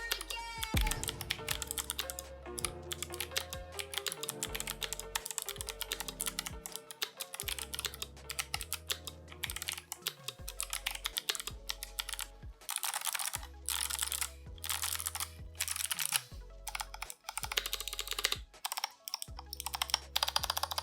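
Mechanical keyboard with clicky switches being typed on rapidly, a dense stream of sharp clicks, over background music with a steady bass line.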